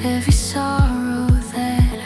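Electronic dance music: a four-on-the-floor kick drum, about two beats a second, under held synth chords, with a swelling high noise sweep near the start.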